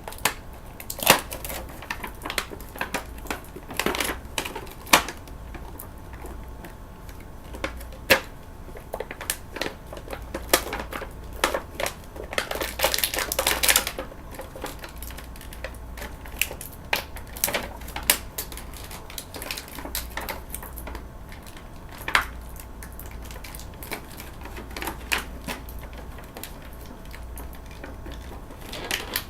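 Plastic and cardboard toy packaging being handled and pried apart: scattered sharp clicks and crackles, with a denser stretch of crinkling lasting about two seconds around twelve seconds in.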